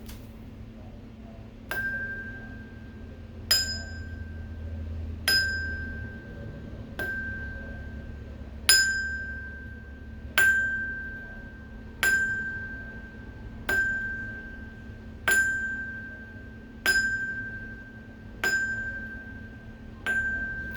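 A small bell struck twelve times at an even pace, about every second and three-quarters, each stroke ringing out clearly and fading before the next, over a steady low hum.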